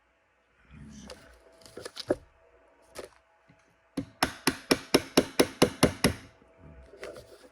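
Pin punch being tapped to drive a pin into a Glock 26 frame: a few separate knocks, then a quick even run of about a dozen sharp taps, about six a second.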